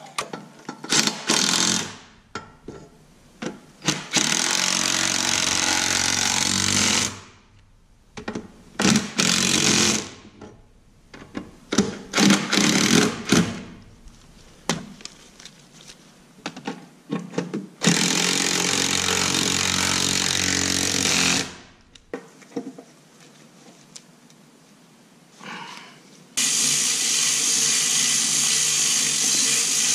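Impact wrench running in several bursts of a few seconds each, driving in bolts, with sharp metal clanks of tools and parts between the bursts.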